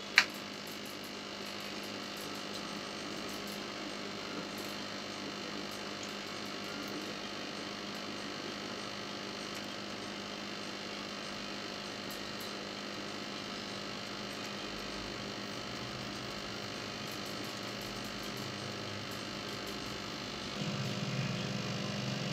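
Steady electrical hum. A single sharp click comes just after the start, and a louder low hum joins in near the end.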